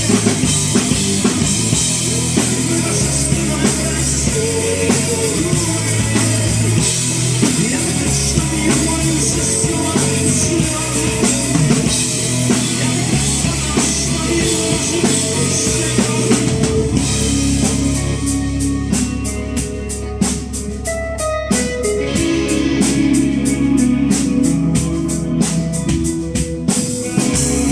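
Live rock band playing an instrumental break on drum kit and guitars, without vocals. About 17 seconds in the full sound thins to a sparser passage with an even ticking beat, then fills out again near the end.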